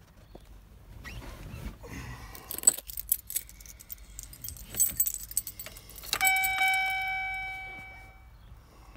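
Keys on a key ring jangling and clicking as the ignition key is worked in the steering-column lock. About six seconds in, one bell-like chime from the truck's dash warning chime rings and fades away over about two seconds.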